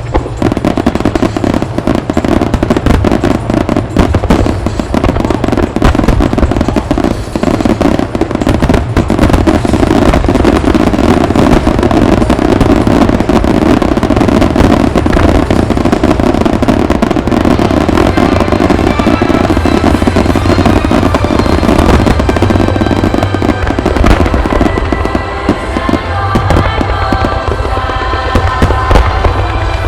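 A dense, continuous barrage of aerial firework shells bursting and crackling, with a deep rumble. Music plays along with the bursts and comes through more clearly in the last few seconds.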